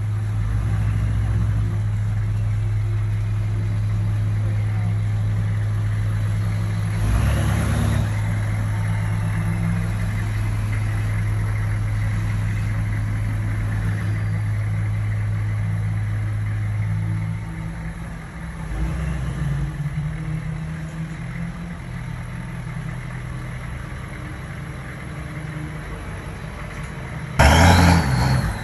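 A vehicle engine running with a steady low hum, which drops away about seventeen seconds in, leaving quieter running. Near the end there is a sudden loud noise.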